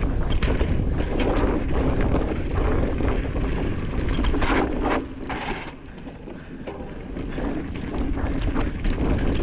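Wind rushing over the camera microphone and mountain bike tyres rolling over a dirt trail on a fast descent, with clicks and rattles from the bike over bumps. The noise drops for a couple of seconds about halfway through, then builds again.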